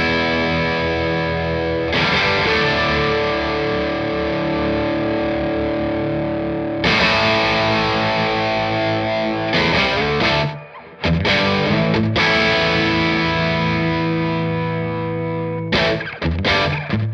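Electric guitar played through the Cobra Fuzz plugin on its 'Fuzz on Fuzz Sugar and Cream' preset into the Silver Llama vintage amp sim, giving a driven overdrive tone. Chords ring out and sustain, with a brief break a little past halfway and short stabbed chords near the end.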